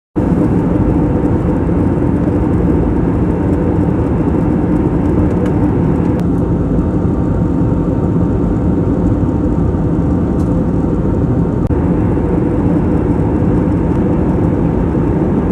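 Steady engine drone and rushing air inside an airliner cabin in flight, unchanging throughout.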